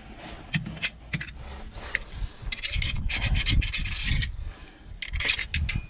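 Hand scraping at the underside of a Władimirec T25 engine block where the oil pan seats, cleaning off the old cork gasket. A few light clicks come first, then rasping scrapes in bursts about two and a half seconds in and again near the end. Wind rumbles on the microphone throughout.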